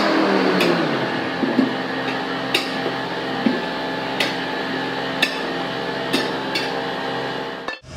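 Sharp metal strikes, roughly one a second, from a long steel tyre bar being driven down against a truck tyre's bead and steel wheel rim to break the bead by hand. An engine hums underneath, its pitch dropping during the first second or so.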